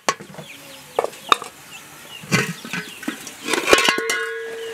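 Metal cooking pots knocking and clanking against each other in a few sharp strikes; near the end a cluster of clanks sets one pot ringing with a steady metallic tone.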